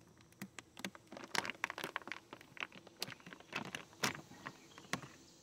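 Irregular clicks and crackles as a beehive frame is worked loose, wood and propolis-glued parts snapping and creaking as they are pried apart.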